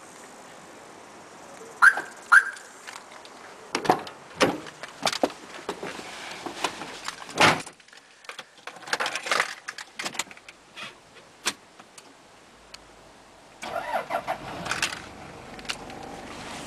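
A run of clicks and knocks from the driver's door and keys of a 1995 Toyota Granvia, then, about 14 seconds in, its 3-litre 1KZ turbo-diesel engine starts and runs on at idle.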